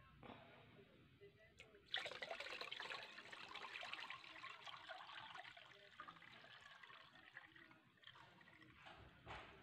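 Liquid fertilizer poured from a plastic bucket through a sieve into another bucket, splashing. The pour starts suddenly about two seconds in and tapers off gradually over the next several seconds.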